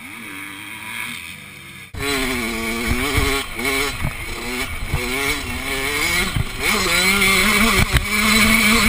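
Dirt bike engine, faint for the first two seconds. It then becomes loud and close, revving up and dropping back again and again as the rider accelerates and shifts around the track, with wind buffeting the microphone.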